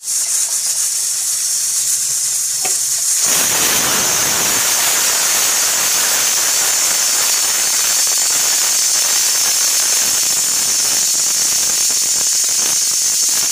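Aluminium pressure cooker's weight valve (whistle) venting built-up steam pressure with a loud, steady hiss, growing fuller and stronger about three seconds in.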